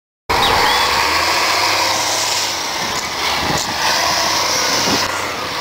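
Diesel engine running steadily, a low hum under dense engine noise, cutting in suddenly just after the start.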